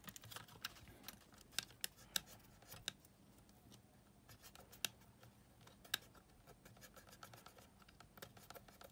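Faint scratching of a cotton swab rubbed against a brass shaft in a Sony Walkman FX483's cassette mechanism, wiping off leftover residue, with scattered small clicks and a handful of sharper ticks from handling the player.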